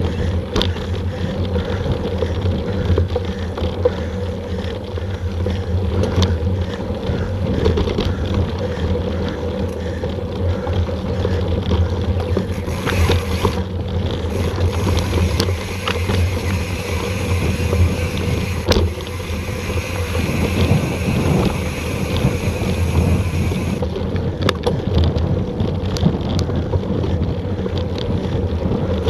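Wind buffeting an action camera's microphone over the rumble and rattle of a mountain bike rolling fast along a dirt singletrack, with scattered clicks and knocks from the bumps. About halfway through, a higher steady hiss joins in for about ten seconds.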